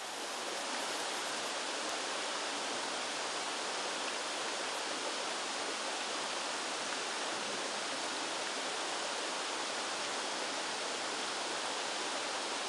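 Water spray nozzles in the wet dedusting stage of a poultry-house biological air scrubber, spraying onto the packing with a steady, even hiss.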